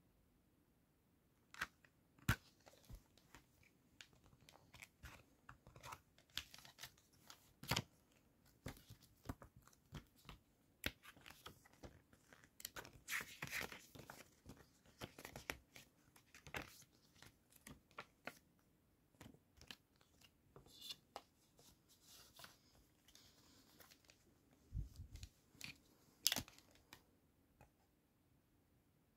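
A plastic CD jewel case, its paper booklet and the disc being handled: scattered sharp plastic clicks and short rustles, busiest about halfway through.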